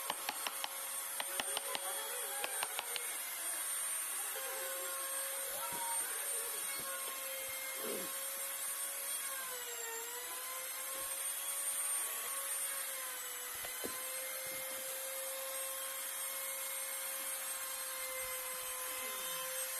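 A carving chisel tapping on wood, about three light knocks a second, for the first three seconds, then stopping. A steady machine hum runs underneath and dips briefly in pitch about halfway through.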